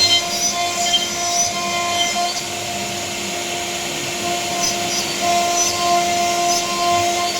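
CNC router spindle running steadily while its bit carves a panel: a constant whine with the hiss of cutting and small scattered ticks.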